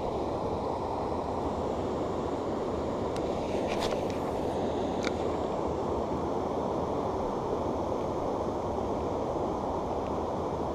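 Steady riverside rushing noise: water running over a weir and wind on the microphone, with a few faint ticks about three to five seconds in.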